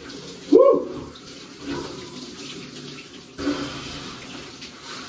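Handheld shower spraying water onto a man's head and back in a cold shower, a steady rush of water. About half a second in, he lets out a short vocal cry that rises and falls in pitch.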